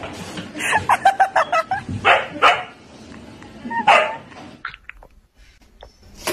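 Siberian husky barking: a quick run of short barks about a second in, then a few single, louder barks.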